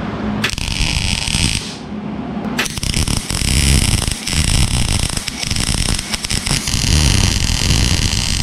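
MIG welder arc crackling as reinforcement plates are welded onto a steel BMW E30 rear subframe. A short weld about half a second in, a brief pause, then one continuous bead from under three seconds in to the end.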